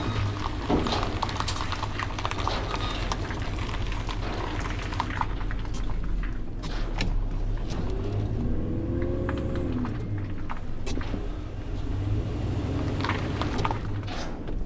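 Dumpster truck's engine running, a steady low rumble, with scattered ticks and knocks and a brief rising-then-falling whine about eight seconds in.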